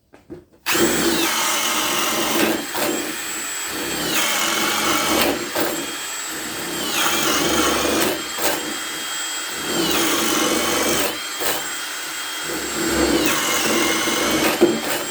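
Ryobi One+ HP brushless hammer drill boring holes with a 3/4-inch spade bit on speed 2. The motor starts about a second in and runs with a high whine that sags in pitch each time the bit bites under load and rises again, with a few brief breaks between holes. It stops just before the end.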